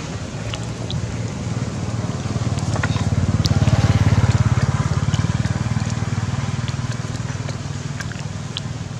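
A low engine hum that grows louder toward the middle and then slowly fades, with scattered faint clicks over it.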